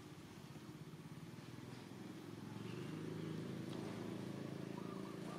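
A low, steady engine rumble with a fast even pulsing, growing louder about halfway through, like a motor vehicle running nearby.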